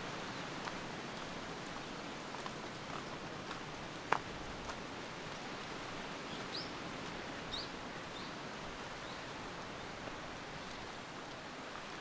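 Outdoor ambience: a steady even hiss, with a bird giving a few short chirps in the middle. Scattered faint clicks run through it, with one sharper click about four seconds in.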